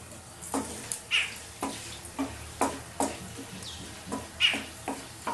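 Spatula stirring whole garam masala and dried red chillies in hot oil and ghee in a kadai: short scraping strokes about twice a second over a light sizzle as the spices fry.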